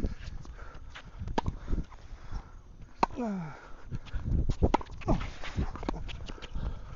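Scattered sharp knocks on a tennis court, typical of a tennis ball being bounced or struck and footsteps, with a short whine falling in pitch about three seconds in.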